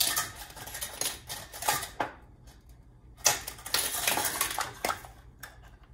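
A set of measuring spoons clicking and rattling together as they are handled and sorted through, in two bouts of quick clatter, the first about two seconds long and the second starting about three seconds in.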